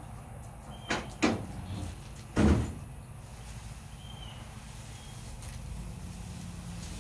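Two quick knocks about a second in, then a louder, heavier thump about a second later.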